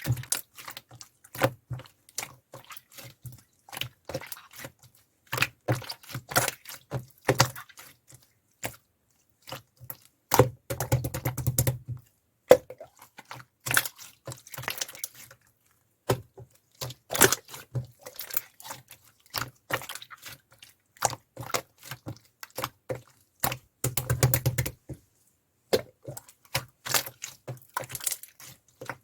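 Thick, stiff slime being pressed, folded and poked by hand, giving irregular sticky clicks and crackling pops, with denser runs of crackles about 11 and 24 seconds in.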